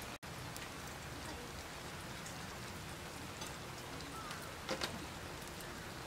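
Offal stew (motsu-ni) simmering in a cast-iron skillet on a grill over charcoal: an even bubbling sizzle with scattered small pops, and a pair of louder pops close together late on.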